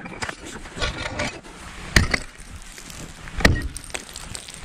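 Cold Steel pole axe striking the ice of a frozen pond: two hard impacts about a second and a half apart, with lighter cracks and crunches of ice between them.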